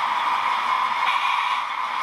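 Model train running along layout track: a steady, even rushing noise with no distinct clicks or rhythm.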